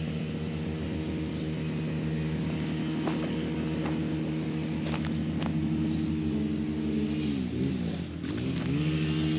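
An engine running steadily at an even pitch, sagging down and coming back up twice near the end, with a few light snaps over it.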